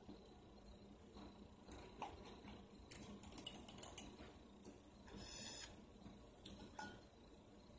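Faint sipping through a straw from a nearly empty drinking glass, with small clicks of the straw against the glass. There is a sharp click about three seconds in and a short slurping hiss a little after five seconds.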